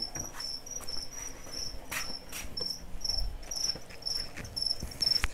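A cricket chirping steadily, short high chirps at about three or four a second. A couple of knocks from things being handled come about two seconds in.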